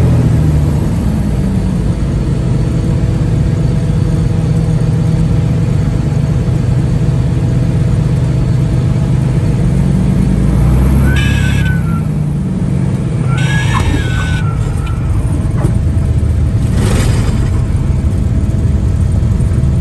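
Cessna T206's turbocharged six-cylinder engine and propeller running at low landing power, heard from inside the cockpit. Two short squeaks about eleven and fourteen seconds in, typical of the tyres touching down on the runway, and a brief rush of noise near the end.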